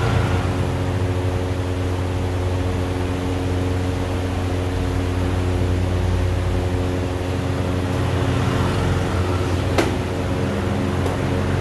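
Steady machine hum with several steady low tones, and one sharp tap a couple of seconds before the end.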